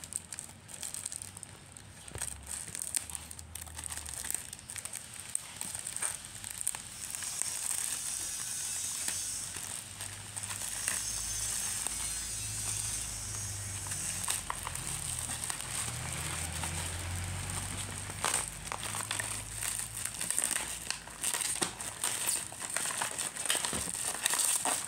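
Plastic bag packaging crinkling and crackling as it is handled, cut with scissors and torn open by hand, with many irregular crackles throughout.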